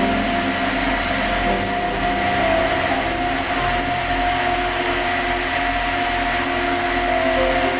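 Electric arc welding on pipe: a steady hiss and crackle of the arc, with held tones changing pitch underneath.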